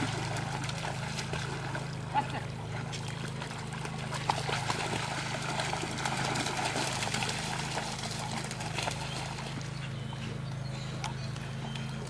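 Dogs splashing and paddling in a pond, with scattered small splashes and ticks over a steady low hum.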